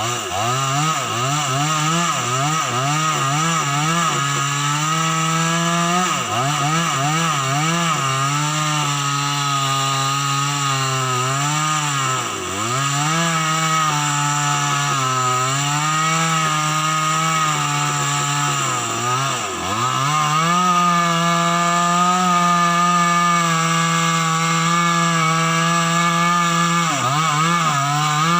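Chainsaw running at high revs while cutting into a tree, its pitch wavering and sagging deeply under load three times before recovering.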